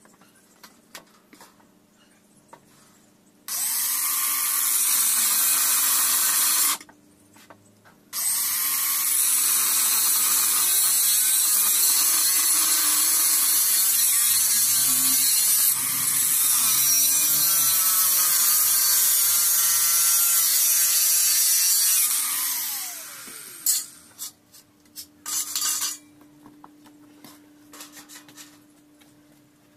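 Angle grinder cutting steel angle profile: one short cut, a pause, then a long cut with the motor pitch wavering under load, ending in a falling spin-down. A few short whirs follow near the end, likely a cordless drill.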